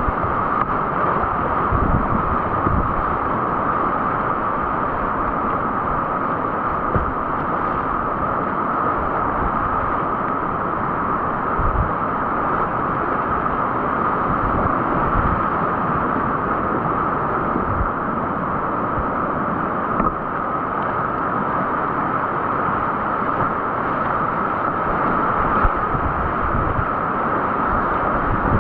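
Steady rush of river whitewater, with scattered brief low thumps of wind buffeting the microphone.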